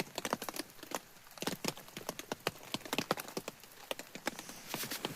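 Rain falling on a tarp or tent fly: irregular drops and drips tapping, several a second.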